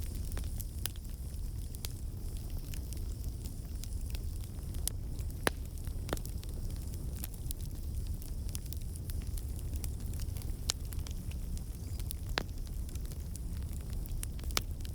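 Campfire burning with a steady low rumble and irregular sharp crackles and pops, a few louder snaps scattered through.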